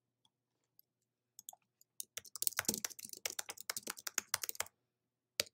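Typing on a computer keyboard: a quick run of keystrokes lasting about two and a half seconds, with a few scattered key clicks before it and a single click near the end.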